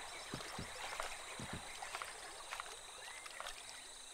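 Faint rainforest ambience: a few short frog croaks and water plops over a steady high insect drone, with a small chirp near the end.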